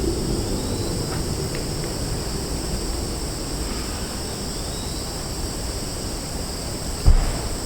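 Rural roadside ambience: a steady high chorus of insects, with the low rumble of a passing vehicle dying away over the first couple of seconds. A single brief low thump comes near the end.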